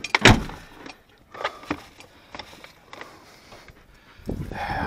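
A few sharp knocks and clicks of objects handled at a car's open door, the loudest just after the start, with lighter ticks after it and a rising rustle near the end.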